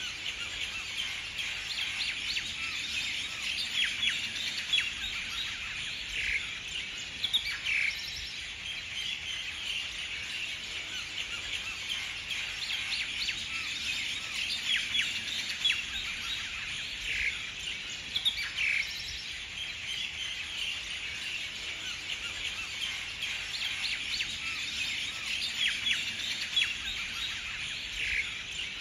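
Many birds chirping and calling together in a dense, unbroken chatter, with a louder call note standing out every few seconds.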